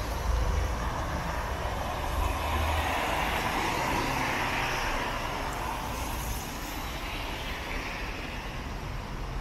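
City traffic on a rain-wet street: a vehicle's tyres hiss past, swelling and fading over a few seconds in the middle, over a steady low rumble of engines.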